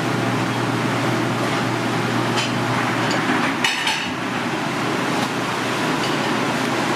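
A steady roaring noise with a few sharp clinks of metal or glass a little past the middle.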